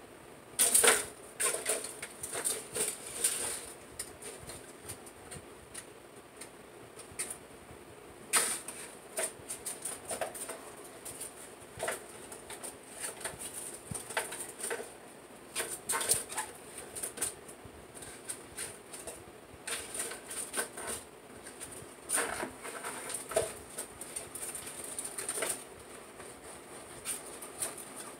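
Irregular crinkling and light taps as a wet painted canvas is tilted and shifted on crumpled aluminium foil. The loudest cluster comes about a second in.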